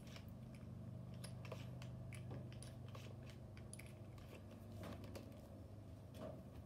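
Faint scattered clicks and taps of a drill bit and a small wooden block being handled at a workbench, over a low steady hum.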